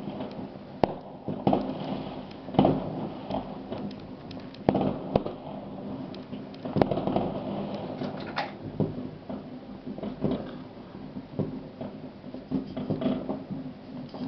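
Fireworks going off: an irregular, overlapping scatter of bangs and crackles, with a few louder booms standing out.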